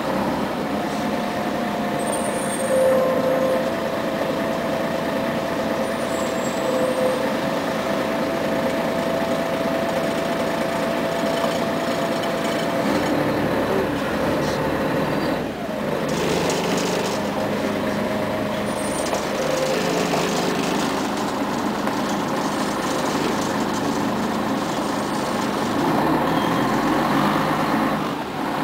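Scania CN113ALB city bus heard from inside the passenger cabin, its diesel engine running steadily as it creeps along in traffic. A thin steady whine sits over the engine for the first dozen seconds or so. The engine sound dips briefly about halfway through.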